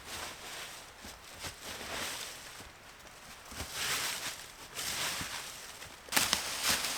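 Rustling and light footsteps in dry leaf litter, with scattered small knocks, getting clearly louder about six seconds in.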